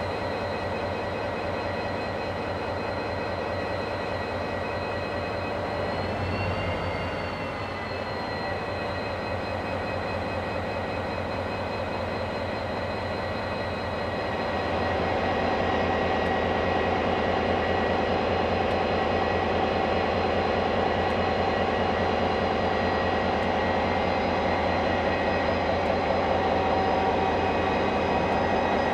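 KiwiRail DFB class diesel-electric locomotive running with a steady high whine over the engine's pulse. About halfway through, the engine note grows louder and fuller as the locomotive takes power and begins to pull away.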